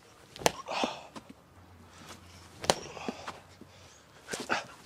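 Thrown baseballs hitting a practice net: three sharp smacks about two seconds apart, each followed by a short rustle.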